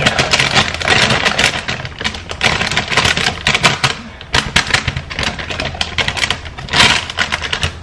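A crinkly plastic bag of leafy greens being handled and shaken out into a bowl: a fast, irregular crackling, with a louder burst near the end.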